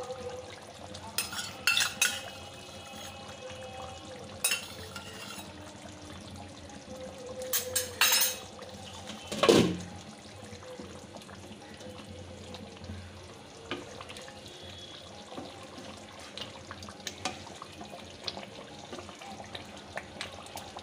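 A metal spatula knocking and scraping against a kadai several times in the first ten seconds, the loudest about halfway through, over the steady bubbling and sizzling of thick curry gravy simmering with ghee.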